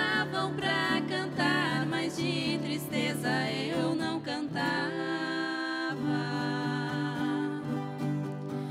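Two women singing a sertanejo caipira moda together with vibrato, accompanied by a plucked viola caipira and an acoustic guitar; about five seconds in the voices hold long notes and then give way to the strings.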